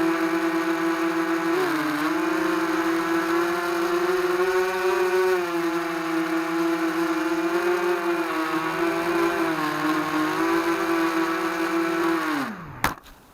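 Brushless motors and propellers of an FPV racing quadcopter whining steadily, the pitch rising and dipping slightly with throttle. Near the end the motors spin down with a steep falling pitch and stop, followed by two sharp clicks.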